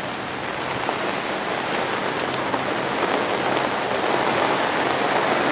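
Steady hiss of rain falling, slowly growing a little louder.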